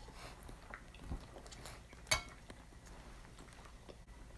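Quiet eating sounds at a meal: faint small knocks, a low thump about a second in, and one sharp tableware clink about two seconds in.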